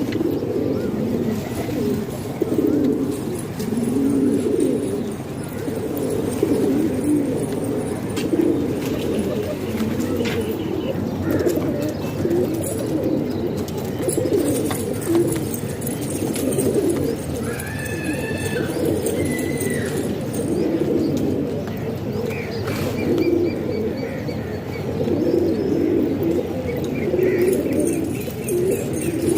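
A flock of domestic pigeons cooing together, many low coos overlapping without a break. A few short, higher chirping calls cut in now and then in the second half.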